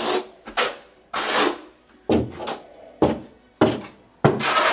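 Half-inch notched trowel scraping thinset mortar across the floor in about six short, rhythmic sweeps.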